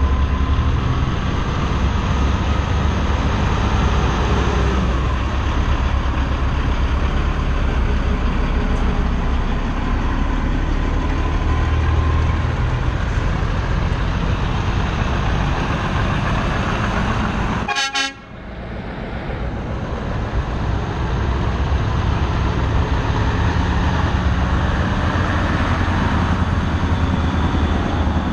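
Heavy trucks' diesel engines rumbling as they drive slowly past, with horn toots. A sharp click and a brief drop in the sound come about two-thirds of the way through.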